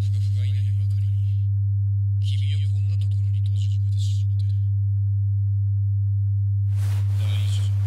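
Old videotape playing back through a TV: a loud steady low hum, with garbled, hissy fragments of a man's voice breaking through three times and faint ticks in between.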